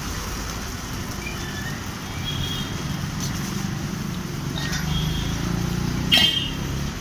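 A motor vehicle's engine rumble builds over a few seconds and eases again near the end, as if passing, over a steady hiss.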